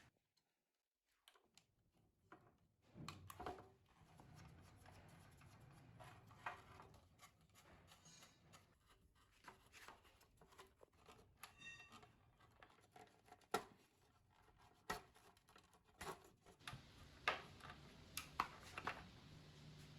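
Quiet workbench handling sounds: scattered light clicks and taps, a few sharper ones near the end, over a faint low hum.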